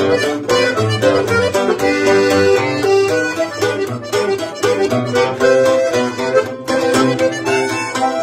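Tex-Mex conjunto music: a diatonic button accordion plays the melody over a strummed twelve-string bajo sexto, with a steady bass-and-chord pulse. Instrumental, no singing.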